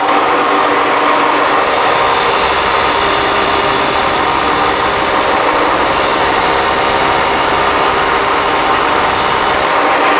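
Electric angle grinder running at speed, its disc grinding metal from about a second and a half in until just before the end, adding a hiss over the motor's steady whine.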